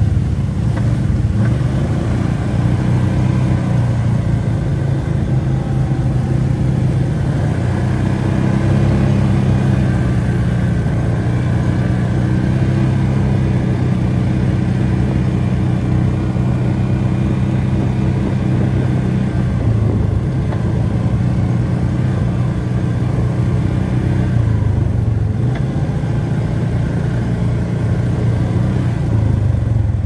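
ATV engine running steadily while under way, its note rising and falling a little as the throttle changes.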